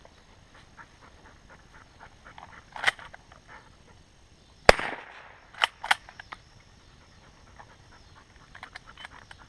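Shotgun shots at doves. A fainter shot comes about three seconds in, then a loud close shot near five seconds with a short echo, then two fainter shots in quick succession about a second later.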